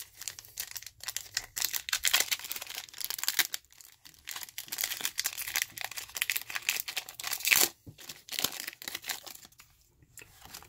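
Foil booster-pack wrapper crinkling and tearing as it is ripped open by hand, a dense run of crackles; it quietens about eight seconds in as the cards are slid out.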